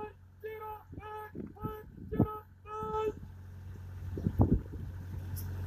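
A singing voice repeating short held notes on nearly one pitch, about half a second apart, over a steady low hum, with two low thumps about two and four and a half seconds in.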